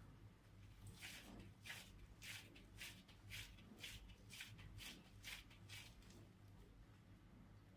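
Faint, soft squelching strokes, about two a second, as wet hands roll and pat raw minced beef into balls.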